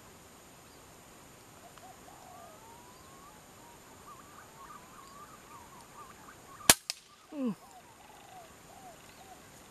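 A single sharp gunshot about two-thirds of the way in, with a fainter click right after it and then a short falling tone. Small birds chirp faintly throughout.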